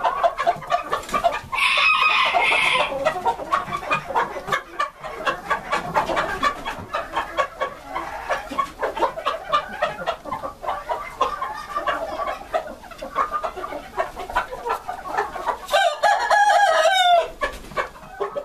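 A flock of Gray Japanese Bantam chickens clucking continuously. A loud drawn-out call comes about two seconds in, and a bantam rooster crows near the end, the crow falling in pitch as it finishes.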